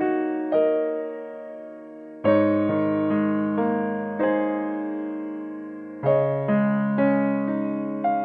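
Background piano music: gentle chords and single notes, each struck and left to fade.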